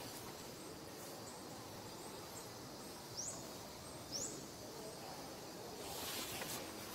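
Outdoor ambience: a steady low hiss, with two short, high rising chirps about a second apart near the middle and a brief rustling rush near the end.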